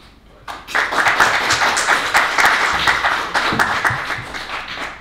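Audience applauding, starting about half a second in and tapering off near the end.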